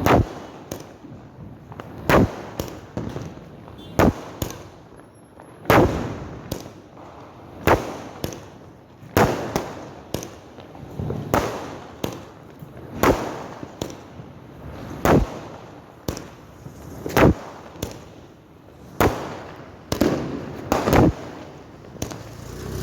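Diwali firecrackers going off in quick succession: a loud, sharp bang about every two seconds, each echoing away, with smaller pops in between.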